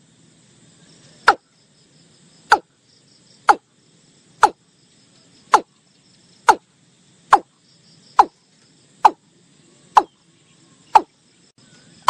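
Watercock calling: a steady series of short, sharp notes, each sweeping down in pitch, about one a second. Faint insects trill continuously underneath.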